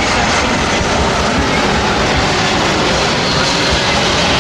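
Boeing C-17A Globemaster III's four Pratt & Whitney F117 turbofan engines running during a flying display, a loud steady jet noise.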